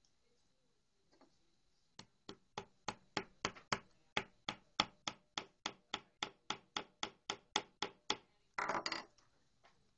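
Claw hammer tapping lightly and quickly at the corner of a wooden canvas stretcher frame: about twenty even taps at three or four a second, starting about two seconds in. Near the end comes a short scuffing noise.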